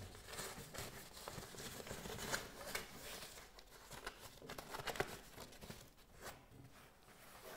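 Faint rustling and crinkling of a breathable roofing membrane being fed by hand under a lifted timber batten, with a few light clicks.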